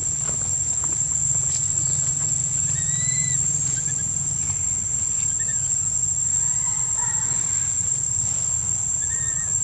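Steady high-pitched insect drone, with a few short arching squeaks coming now and then.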